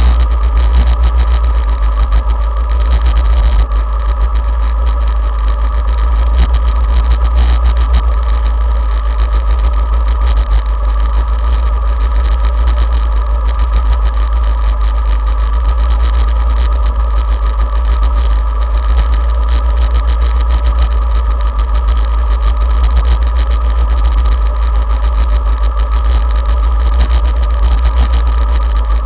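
Motorcycle engine idling steadily, with a strong low rumble, while the bike stands still.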